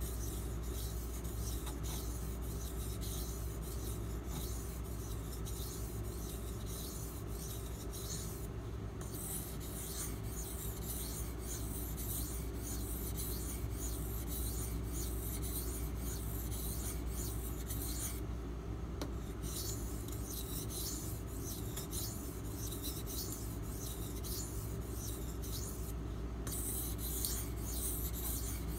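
Knife blade stroked back and forth on a water stone, a rasping scrape with each stroke, in runs broken by short pauses about 9, 19 and 26 seconds in. These are countdown sets of fewer and fewer strokes per side, done to minimise or remove the burr at the edge.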